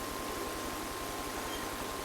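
Steady hiss of background noise with a faint, high, steady tone running through it; no distinct event stands out.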